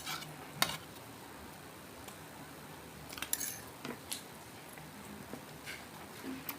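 Eating sounds: light clatter of utensils on plates, a handful of scattered short clicks, the sharpest about half a second in and a small cluster around three and a half seconds in.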